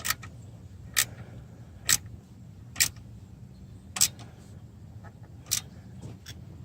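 Ratchet wrench on a 1/2-inch fender bracket bolt, giving a sharp click about once a second, seven in all, as the loose bolt is tightened.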